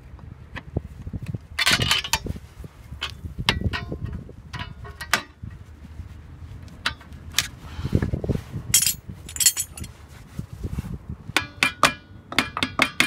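Steel screwdriver and drum-brake parts clinking and knocking as a shoe return spring is levered and hooked into place on a UAZ drum brake: a series of irregular sharp metallic clinks and knocks, several coming close together near the end.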